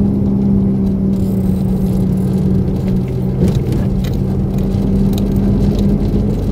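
Car engine and road noise heard from inside the moving car's cabin: a steady hum over a low rumble that shifts slightly about three and a half seconds in.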